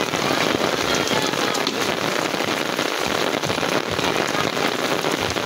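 Heavy rain falling steadily on a wet paved street, an even, dense hiss of drops.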